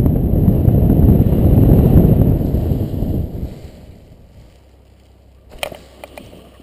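Wind rushing over the paraglider pilot's camera microphone as he glides in to land, dying away about three and a half seconds in as he slows to touch down. A few light knocks near the end.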